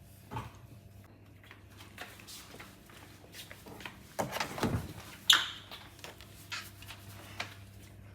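Kitchen things being handled: a string of light clicks and knocks, a scraping clatter a little after four seconds, then a sharp ringing clink about five seconds in.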